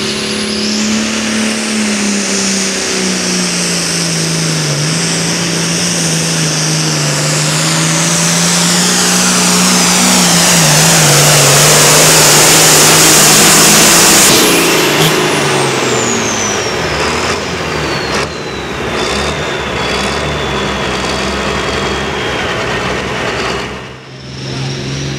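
International Harvester 856 pro farm pulling tractor's turbocharged diesel running flat out under full load, its note sinking slowly as the sled drags it down while the roar and a high whine build. About fourteen seconds in, the throttle is cut and the turbo whistle winds down in a long falling whine.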